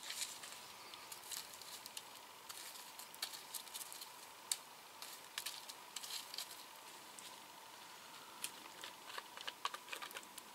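Small wood campfire crackling, with irregular sharp pops and snaps over a faint hiss.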